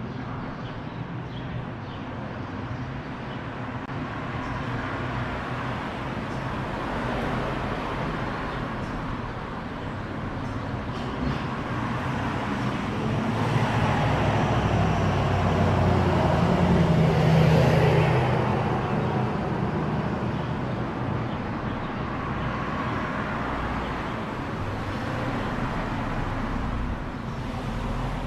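Street traffic going by: steady road noise from passing cars, with one vehicle passing close, rising to a peak about two-thirds of the way through and then fading away.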